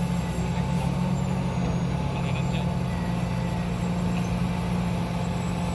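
Heavy diesel engine running steadily with an even low hum, and a few faint light clinks about halfway through.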